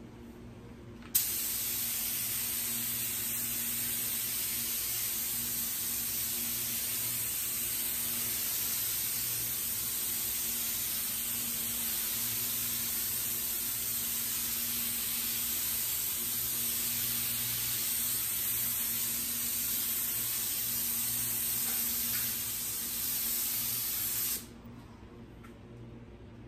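Gravity-feed compressed-air spray gun with a 1.4 nozzle spraying primer: a steady, loud air hiss that starts abruptly as the trigger is pulled about a second in and cuts off near the end when it is released.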